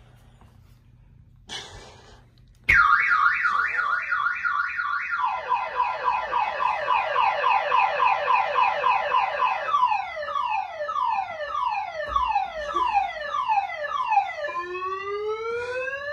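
A car alarm starts suddenly a few seconds in and cycles through its siren patterns: a fast warble, then rapid falling sweeps, then slower falling sweeps, and slow rising whoops near the end.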